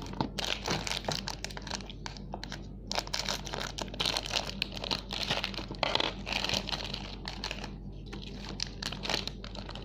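Packaging crinkling and crackling, with some tearing, as a snack box and its wrapping are handled and opened by hand.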